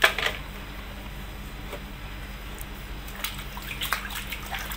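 Water splashing and sloshing as a hand swishes through a basin of soapy, muddy water: a sharp splash at the start, then a quieter stretch, then a run of small splashes and drips about three seconds in.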